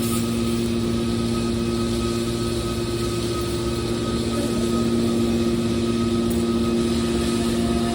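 Hydraulic car baler machinery running, a steady mechanical hum that holds one pitch.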